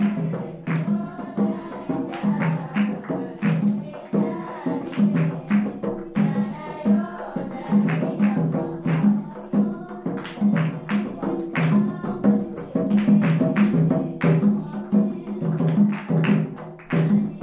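Music with a steady beat of drums and sharp, rapid percussion strikes.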